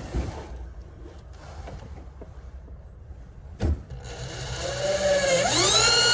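Power drill driving another wood screw into the whelping box, with a single knock about three and a half seconds in. The motor then winds up in pitch, holds and runs down again near the end.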